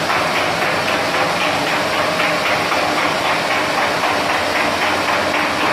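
Continuous fish fryer running: frying oil sizzling steadily over the hum of the machine.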